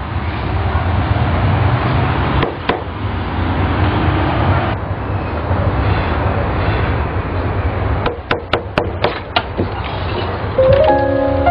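Knuckles knocking on a wooden door: two knocks about two and a half seconds in, then a quicker run of about six knocks about eight seconds in, over a steady low hum. Piano music comes in near the end.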